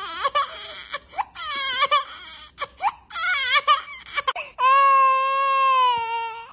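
Infant crying hard: a run of short, wavering, broken cries, then one long held wail starting about two-thirds of the way in.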